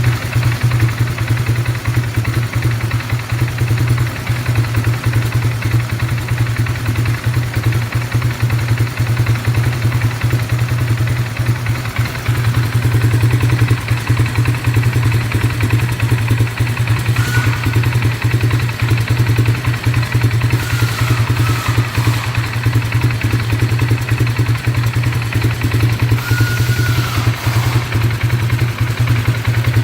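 Engine of a 2018 570 running steadily at idle with a misfire that sets no trouble code.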